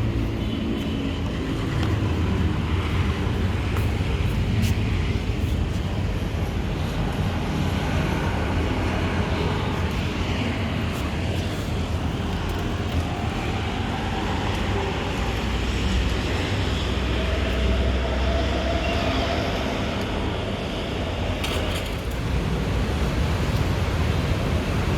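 Daikin Flash Inverter split air conditioner running: a steady rush of fan air with a low hum underneath. There is a brief change about 22 seconds in.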